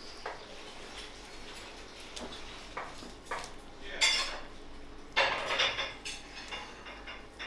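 Metal kitchenware clattering and scraping: scattered sharp clinks, with two louder bursts about four and five seconds in.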